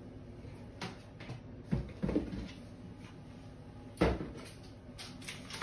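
Off-camera kitchen handling noises: a few light knocks and clicks, then a sharper thud about four seconds in, as of a cupboard door or an object knocked against the worktop.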